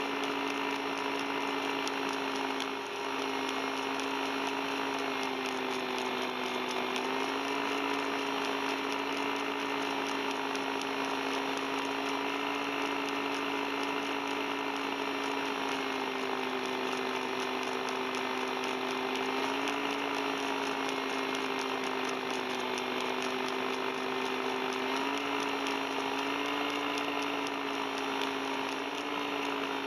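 Two-seat paramotor trike's engine and propeller running steadily in low flight, the pitch dipping briefly once and stepping up slightly a few times as the throttle changes.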